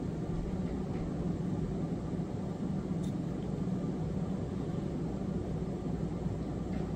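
Steady low rumble with a hiss of background noise, even throughout, with no distinct events.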